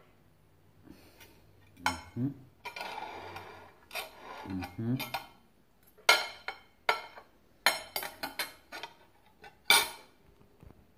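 A metal spoon and fork clinking and scraping against a plate while cutting into boiled pork, with several sharp clinks and a stretch of scraping. There are a couple of brief low voice sounds.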